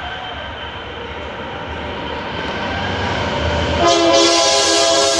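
Approaching freight train led by a GE Dash 9 diesel locomotive, its rumble growing louder. About four seconds in, the locomotive's air horn starts suddenly and holds, very loud.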